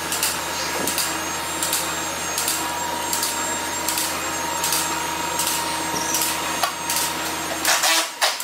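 Four-post vehicle lift's motor running steadily as it raises a car, with a light click about every three-quarters of a second. The motor stops near the end.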